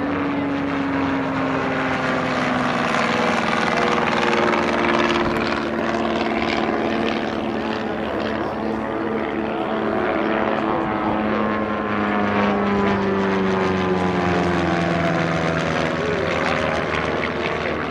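Propeller aircraft flying over, a steady engine drone whose pitch sinks slowly over many seconds.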